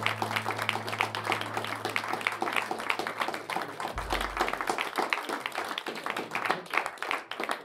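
An audience clapping in applause in a small room, many hands in a dense, uneven patter. A low held note sounds beneath it and stops about four seconds in.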